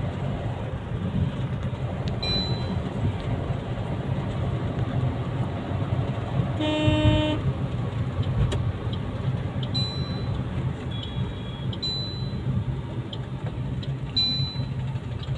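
Steady low road and engine rumble heard from inside a moving car's cabin. About seven seconds in, a vehicle horn sounds one short honk of under a second.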